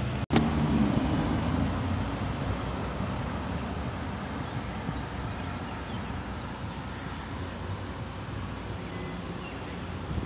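Street traffic noise: a motor vehicle louder just after the start, fading over the next few seconds into a steady low traffic hum.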